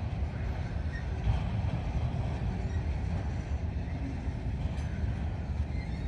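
Freight train of autorack cars rolling past on the rails: a steady low rumble of wheels and car bodies.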